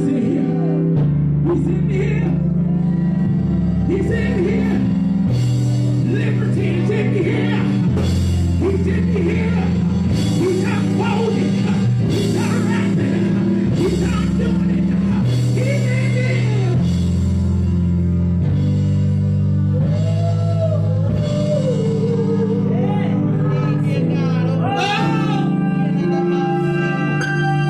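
Live gospel band music: drums and a steady bass line, with a voice singing and sliding in pitch over it.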